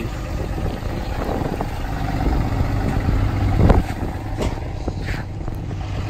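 Vehicle engine idling with a steady low rumble, with a few dull thumps in the second half, the loudest about three and a half seconds in.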